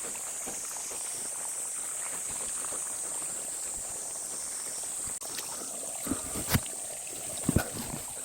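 Insects buzzing in a steady, high, even drone over a faint water trickle. In the last couple of seconds come a few sharp knocks and thuds.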